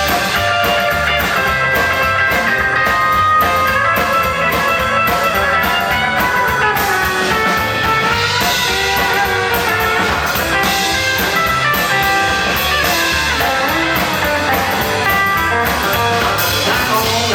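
Rock and roll band playing an instrumental break: a lead guitar over bass and drums, with no singing.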